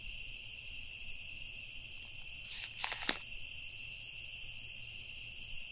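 Crickets chirping steadily as a night ambience, with two faint taps about three seconds in.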